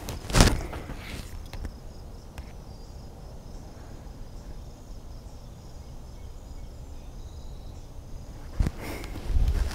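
Insects keep up a steady high drone in the background. There is one sharp crack about half a second in and a couple of duller knocks near the end.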